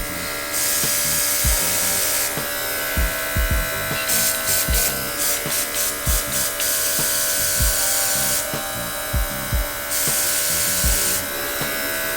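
Small cordless air compressor running steadily, with the airbrush gun it feeds hissing in four bursts of one to two seconds as the trigger is pressed and let go, spraying temporary hair colour. Dull low thumps come through now and then.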